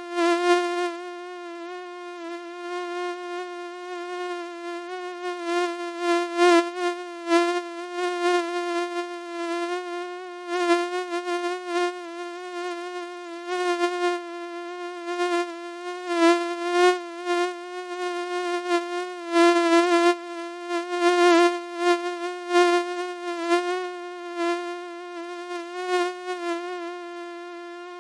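Mosquito buzzing: a steady, high whine that swells and fades over and over, as if the insect were passing close to the ear.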